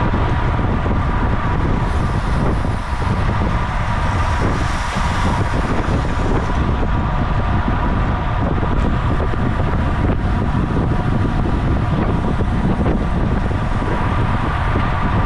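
Wind rushing over the microphone of a camera on a road bike racing at speed, a loud steady rush heaviest in the low end, with a faint steady hum running through it.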